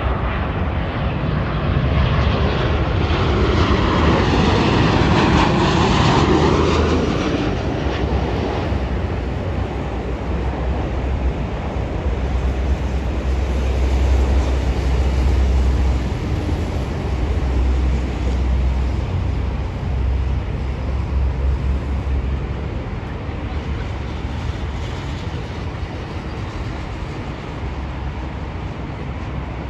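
Boeing 737-800 jet airliner arriving and passing close by, its CFM56 engines' roar peaking a few seconds in with a falling, sweeping pitch as it goes past. A deep low rumble carries on for a good while after and slowly fades.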